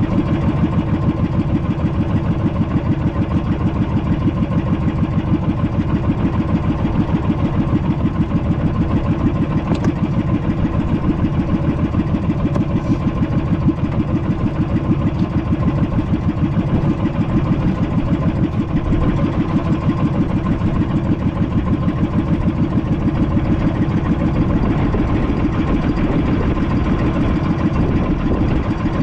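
Small fishing boat's engine running steadily with a fast, even pulse.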